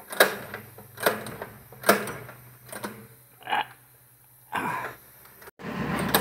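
Recoil pull cord on a small engine yanked about five times, roughly once a second, each pull turning the engine over with a short puffing spit as oil that had flooded the cylinder is pushed out. Near the end the sound breaks off and a steady, louder noise starts.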